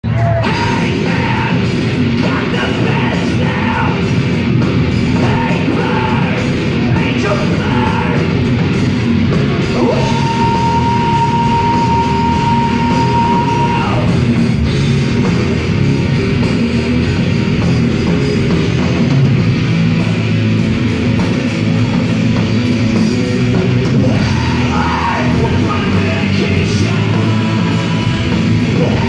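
A live rock band playing loud through a concert PA: electric guitars, bass and drums, with vocals. A single high note is held for about four seconds near the middle.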